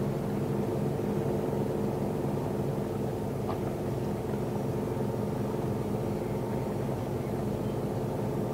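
A ship's engine running with a steady, low drone made of several held tones.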